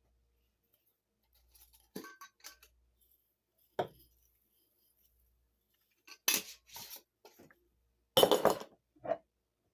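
Glass and dishware clinking and knocking in short, separate clatters, the loudest near the end.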